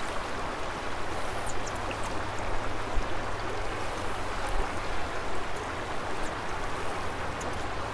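Steady rushing noise of flowing river water around a drift boat, with a few faint high ticks.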